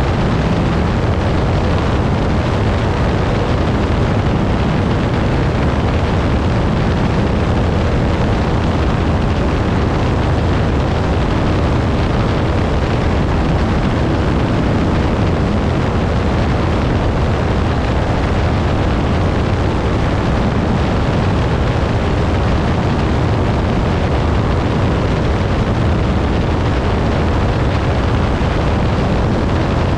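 Piper Pawnee tow plane's piston engine running steadily at high power while towing a glider aloft, a constant loud drone mixed with rushing air.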